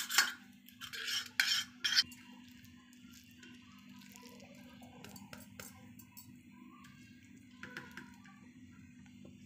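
A steel spoon scraping around a stainless steel plate, spreading ghee, in several loud strokes over the first two seconds. After that come softer scrapes and light taps of the spoon as thick barfi mixture is spooned onto the plate.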